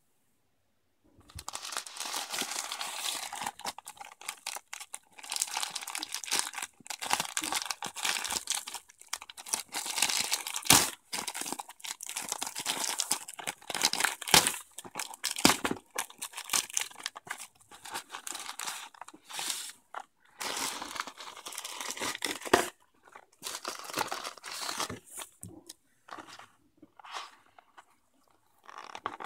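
Plastic mailer bag crinkling and tearing as it is ripped open by hand, with several sharp cracks along the way. Near the end there are quieter, scattered rustles.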